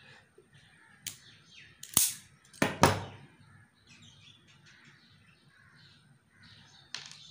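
Self-adjusting wire stripper squeezed on a thin copper wire: a faint click about a second in, then two sharp snaps of the spring-loaded jaws as they grip and strip the insulation, around two and three seconds in, the second slightly longer.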